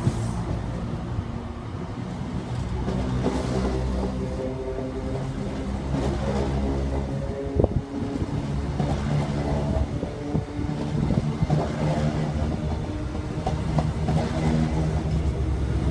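InterCity 125 high-speed train with Class 43 diesel power cars 43315 and 43309 rolling past with its Mk3 coaches: a steady diesel engine drone over the rumble of the wheels on the rails. There is one sharp knock about eight seconds in, and the sound grows louder near the end as the rear power car draws near.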